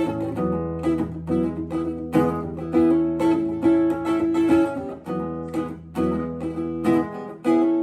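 Acoustic guitar played solo, plucked chords at about two a second in a steady rhythm, with no singing: the instrumental intro of the song.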